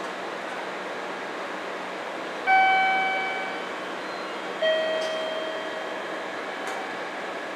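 Two bell-like chime tones about two seconds apart, each dying away over about a second, the second a little lower in pitch. Beneath them runs the steady hum of a standing electric train's equipment.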